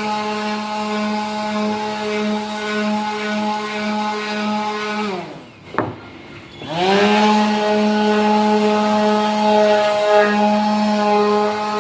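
Electric woodworking machine running with a steady whine. About five seconds in it is switched off and its pitch sinks as it coasts down; a click follows, then it starts again, the whine rising back to full speed within about a second.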